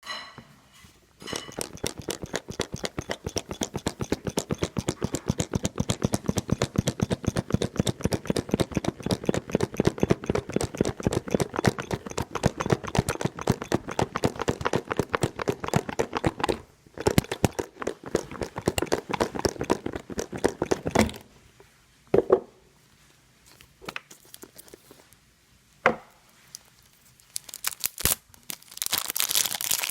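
Packaging being torn open and handled: a long run of fast, dense crackling and tearing, then a few separate cracks and rustles, and crinkling again near the end.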